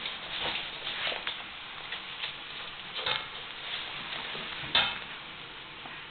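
Cavalier King Charles spaniel puppies scuffling on a wooden floor: irregular scratches and clicks of claws and rustling as one mouths and drags a white scrap, with the loudest scrape about three-quarters of the way through.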